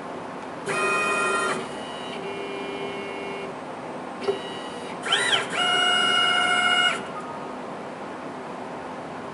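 The axis drive motors of a CNC PCB mill whine as the spindle head traverses during an automatic tool change. There are several pitched whines, each lasting about a second, over a steady hiss. Midway one whine rises and falls in pitch as the axis speeds up and slows down, with a brief click just before it. The moves stop about seven seconds in.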